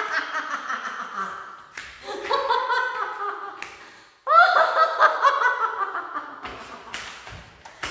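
A woman laughing hard in three long bursts, the last breaking out suddenly about four seconds in.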